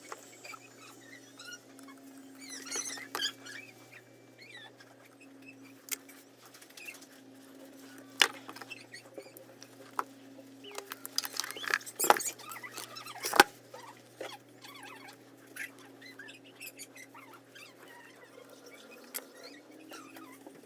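Small tools being handled on an electronics workbench while a jumper wire is fitted to a circuit board: scattered light scratching and ticking, with two sharp clicks about twelve and thirteen and a half seconds in, over a steady low hum.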